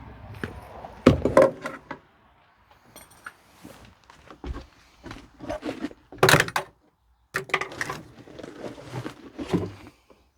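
Irregular knocks, thumps and rustling from stripping the interior out of a Ford F-250 cab, with the loudest clunks about a second in and again about six seconds in.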